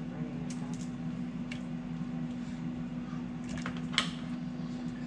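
A knife knocking on a cutting board a few times as raw chicken wings are cut apart, the sharpest knock about four seconds in, over a steady low hum.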